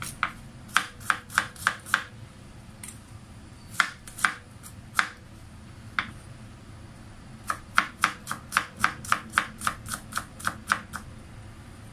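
Kitchen knife chopping garlic cloves on a wooden cutting board: a few short runs of sharp knife strikes, then a faster run of about four strikes a second in the last few seconds as the garlic is minced.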